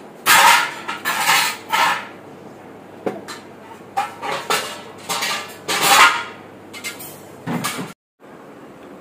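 A hand punching down and kneading risen pizza dough in a glass bowl: several short, irregular bursts of sticky handling noise with the dough pressing and slapping against the glass.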